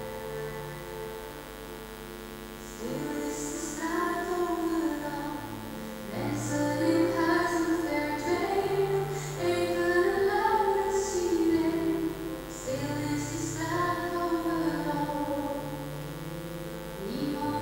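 A woman singing a slow Dutch song with keyboard and violin accompaniment. The keyboard and strings play alone at first, and the voice comes in about three seconds in.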